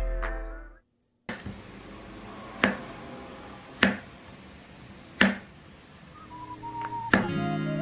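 A chef's knife slicing a zucchini into rounds on a wooden cutting board, with a sharp knock each time the blade meets the board, four times about a second apart. Background music fades out at the start, and soft guitar music comes back in near the end.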